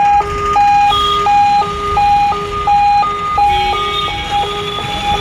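Ambulance's electronic siren sounding a repeating three-note stepped pattern, about one and a half cycles a second, over the low rumble of jammed road traffic.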